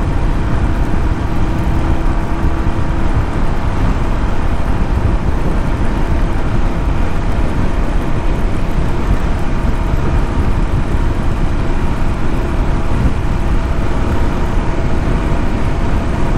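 Royal Enfield Classic 350's single-cylinder engine running flat out at about 100 km/h under full throttle, under a heavy, steady rush of wind.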